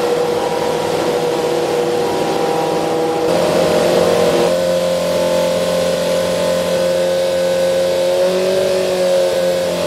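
Formula Student race car's engine running at steady revs, its pitch stepping up about three seconds in and again a second later, with a slight shift near the end. The engine has just been started for the first time and is running while its fuel and ignition mapping is tuned from a laptop.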